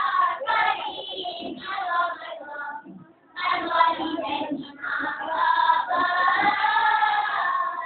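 A group of boys singing marhaban, the Malay chanted praise song, together in sung phrases, with a short break about three seconds in and a long held phrase near the end.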